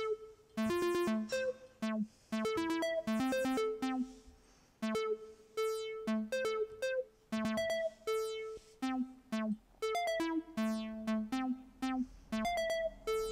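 Synthstrom Deluge groovebox playing a looping sequenced synth pattern: bright, overtone-rich notes that start sharply, some short and plucky, some held up to about a second, stepping between a few pitches.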